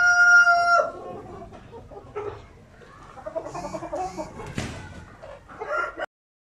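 Light Sussex rooster finishing a crow on one long held note that cuts off just under a second in, followed by quieter clucking from the hens and a single knock about four and a half seconds in.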